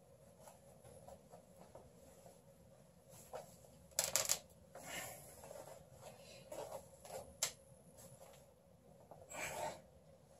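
Worn-out cloth trousers being handled and pulled at by hand: fabric rubbing and rustling in a series of short bursts, the loudest a double burst about four seconds in.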